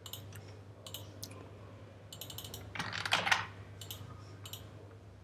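Keystrokes and clicks on a computer keyboard, coming in short scattered clusters, with a brief soft rush of noise about three seconds in.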